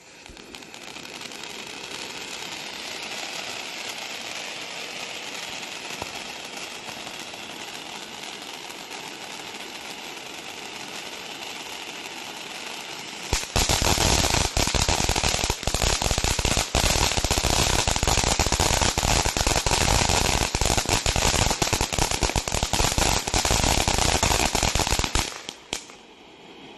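Piromax PXF214 fireworks fountain battery burning: a steady spraying hiss for about thirteen seconds, then a much louder stretch of dense, rapid crackling for about twelve seconds, dropping back to a softer hiss near the end.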